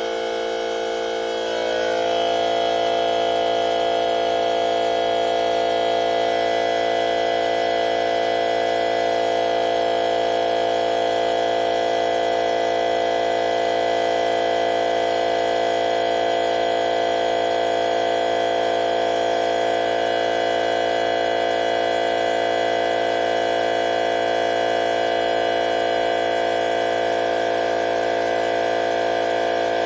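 DEWALT FLEXVOLT 60V cordless 2.5-gallon air compressor running steadily, building pressure in its tank. A steady electric-motor hum made of many pitched tones, stepping up slightly in loudness about two seconds in.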